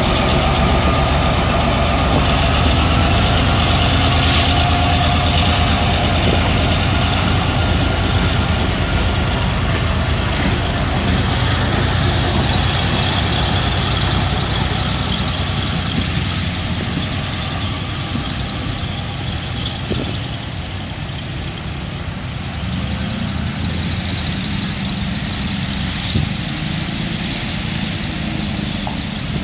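Diesel locomotive engine rumbling as it hauls a passenger train past and away, slowly fading over the first half. It leaves a steady hiss in which cars move over the wet level crossing.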